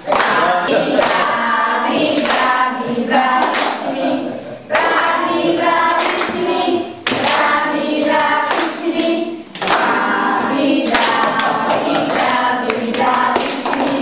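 Several voices singing together, with hand claps now and then.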